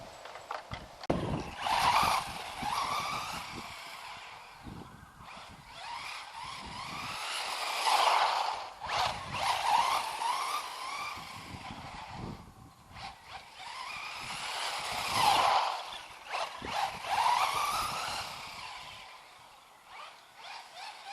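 FTX Vantage electric RC buggy driven fast on a road, running on a 2S battery with oversized wheels. Its motor whine rises and falls as it accelerates and slows, over tyre hiss on the tarmac. It comes close and loud about 2, 8 and 15 seconds in.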